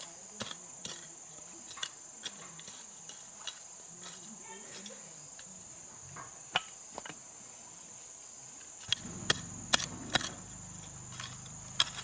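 A hand hoe chopping into dry garden soil in scattered sharp strikes, with a quick run of louder strikes about nine to ten seconds in. Under it, insects drone steadily at a high pitch.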